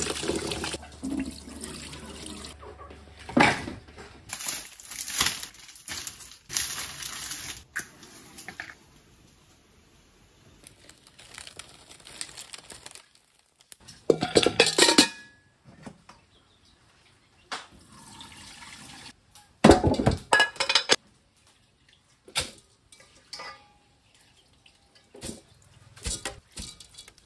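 Rice being washed by hand in a stainless steel basin under a running tap: water running, splashing and sloshing in irregular spells, with a few loud bursts and occasional knocks of metal basins and pots. Near the end, wet rice is dropped into a metal pot.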